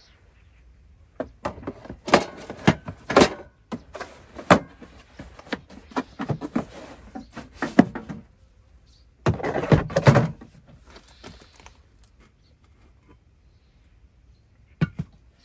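A run of knocks, clicks and thunks from objects being handled, with a dense clatter about nine seconds in and one sharp knock near the end.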